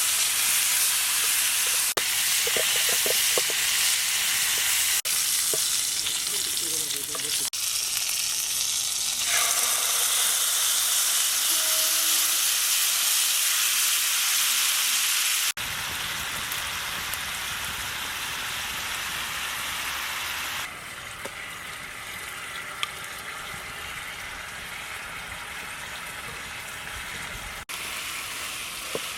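Prawns frying in garlic butter in a pan, giving a steady sizzle. The sizzle jumps in level at several edits and is quieter in the second half.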